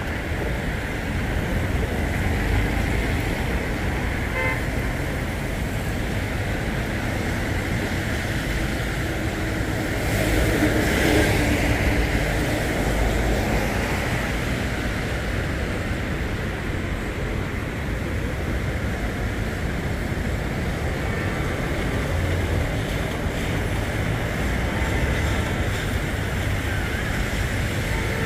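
Traffic on a wet city street in the rain: a steady hiss of tyres on wet road and rain, with one vehicle passing closer and louder about ten seconds in.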